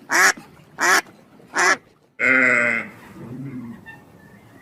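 Duck quacking: three short quacks in the first two seconds, then a longer, drawn-out call.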